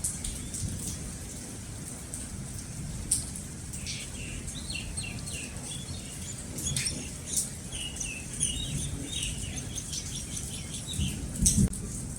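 Steady rain with scattered drops pattering close by and a low rumble underneath. A bird chirps in quick short notes through the middle of the stretch.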